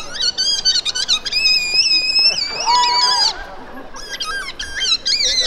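High-pitched squeaky whistling from a clown performer: quick warbling chirps, a longer held squeal about two seconds in, a lower steady tone around three seconds, and more short chirps near the end.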